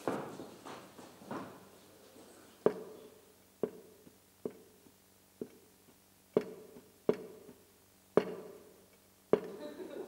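A slow series of sharp knocks, about one a second, each ringing briefly in the hall.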